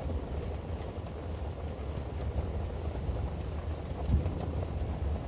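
Rain falling steadily during a thunderstorm, with a low rumble underneath and one louder thump about four seconds in.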